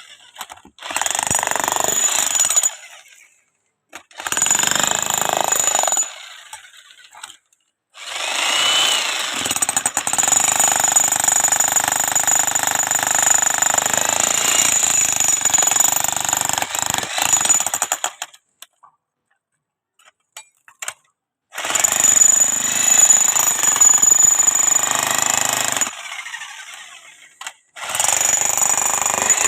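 A high-speed power tool run in repeated bursts of a few seconds each, the longest about ten seconds, with a steady high-pitched whine and short pauses between runs.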